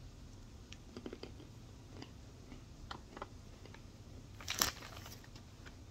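Biting and chewing a chunk of calabar chalk (edible clay): a string of small dry crunches and clicks, with one louder crunch about four and a half seconds in.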